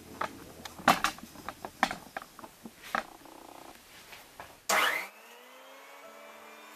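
A few knocks and rattles as wheat is tipped from a bowl into a Khryusha electric grain grinder. Near the end comes a short loud burst, then the grinder's motor whines up to speed and runs on with a steady hum, grinding the grain into coarse whole-grain flour.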